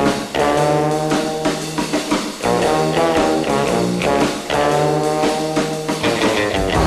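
1961 instrumental film theme played by a small orchestra: brass chords held over a steady bass note, phrases broken off about every two seconds.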